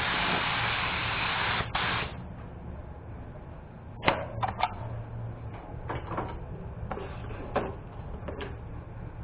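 Steady hiss of compressed air for about the first two seconds, then cutting off; after it come scattered light clicks and knocks over a low steady hum.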